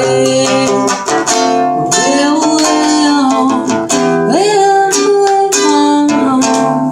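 Acoustic guitar accompaniment with a voice singing a melody that slides between notes, with no clear words.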